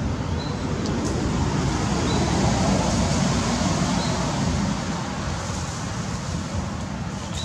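Steady rumbling outdoor background noise, with a few faint short high chirps.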